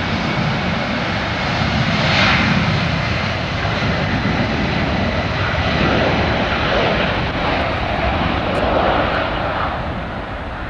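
A fixed-wing aircraft's engines running loud and steady, with a swell about two seconds in.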